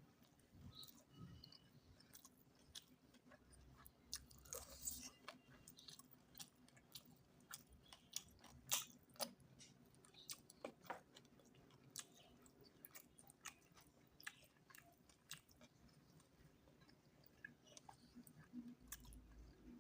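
Quiet, close mouth sounds of someone eating: chewing with many small, irregular wet clicks and smacks, a few sharper ones about four and nine seconds in.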